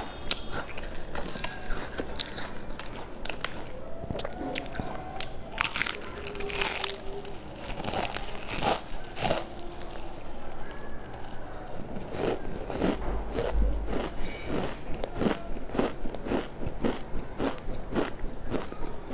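Crisp potato chips being bitten and chewed up close: a string of sharp crunches and crackles, coming fast, several a second, in the second half.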